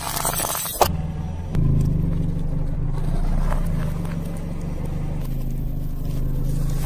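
Car engine running slowly with a steady low hum as the tyre rolls over small objects on asphalt, with a sharp crack a little under a second in and a few faint crackles.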